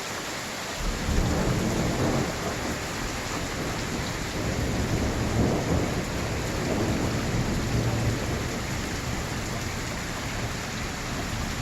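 Steady rain with a long rolling rumble of thunder that comes in about a second in and swells and eases for several seconds.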